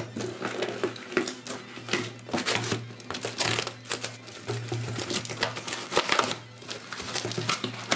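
A cardboard shipping box being opened by hand: packing tape cut and pulled away, with crinkling and scraping of tape and cardboard and irregular knocks as the box is handled.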